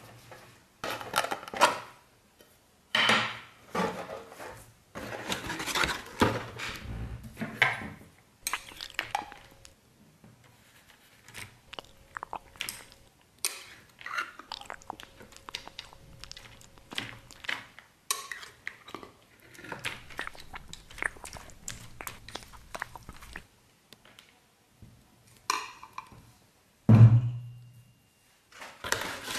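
A metal screw lid twisted off a glass jar, then a metal spoon scraping and clinking against the inside of the glass jar as thick tomato sauce is scooped and spread, in a run of short clicks and scrapes. Near the end comes one heavy thump.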